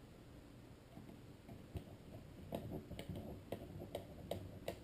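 Light clicks and ticks from hands working the plastic parts of a car instrument cluster. They come a couple of times a second, beginning about two seconds in, over faint handling noise.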